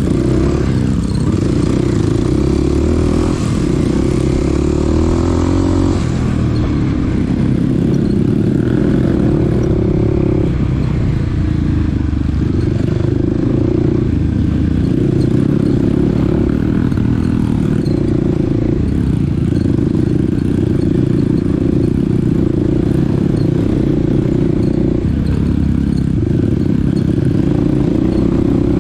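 Small dirt bike's engine running while riding, its pitch stepping up and down as the throttle and gears change.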